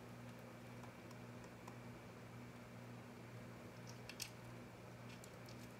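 A few faint clicks and small handling noises from plastic cable connectors and stepper-motor wires being plugged into circuit boards, the sharpest about four seconds in, over a steady low hum.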